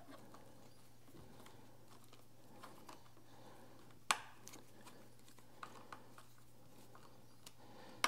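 Small metallic clicks of a hex key and the stem's faceplate bolts being handled as the bolts are loosely threaded in, with one sharper click about four seconds in, over a faint steady low hum.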